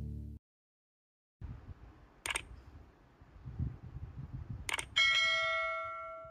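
The end of a song fades and cuts off, then after a second of silence come two mouse clicks and a bright bell ding that rings out for about a second and a half: a subscribe-button and notification-bell sound effect.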